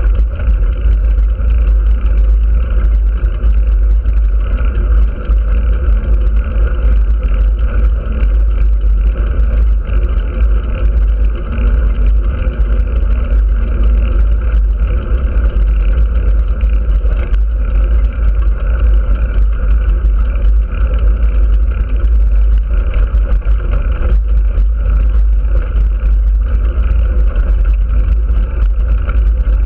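Loud, steady wind rumble on a moving action camera's microphone, with a steady drone of travel noise under it and no breaks.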